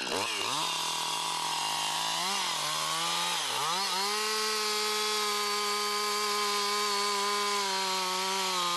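Chainsaw running at high revs. Its pitch dips and recovers a few times in the first four seconds as it bogs under load, then holds steady.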